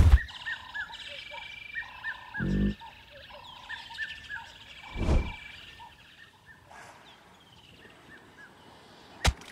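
Savannah ambience with birds chirping over and over. A short, low animal grunt comes about two and a half seconds in, a louder short noise about five seconds in, and a sharp click near the end.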